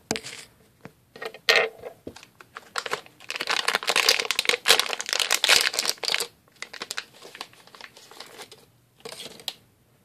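Plastic anti-static bag crinkling and crackling as it is handled and opened, in irregular bursts, densest and loudest for a few seconds in the middle.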